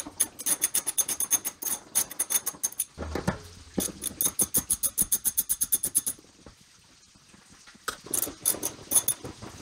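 Ratchet wrench clicking in quick, even runs, three times over, as the rear seat backrest's fastenings are undone.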